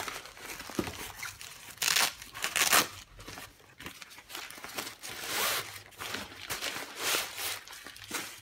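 Rustling and crinkling of a folded black softbox's fabric as it is lifted and handled during unpacking, in irregular bursts, loudest about two to three seconds in and again around five seconds.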